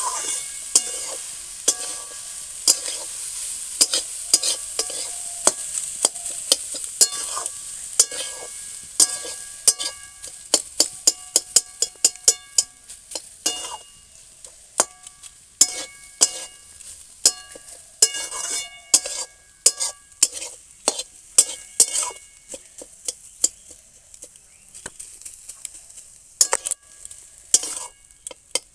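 Rice being stir-fried in a metal pan: a spatula scrapes and knocks against the pan again and again, and the pan rings briefly after the knocks. Under it is a sizzle that is strongest at first and dies away over the course of the stirring.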